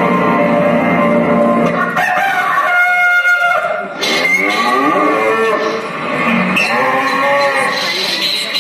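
Music from the performance soundtrack for about two seconds, then a run of long, pitch-bending animal-like cries, probably sound effects in the soundtrack.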